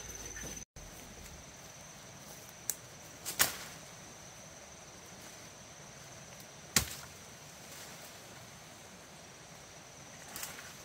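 A few sharp knocks or snaps, the two loudest about three and a half seconds apart, over a steady hiss with a faint high-pitched whine.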